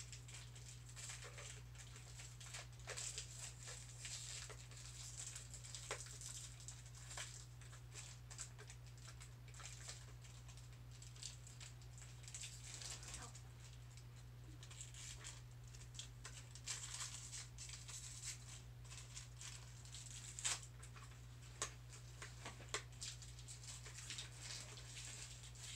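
Hands handling and unwrapping a plastic LOL Surprise capsule toy's packaging: faint, scattered small crinkles and clicks, over a steady low hum.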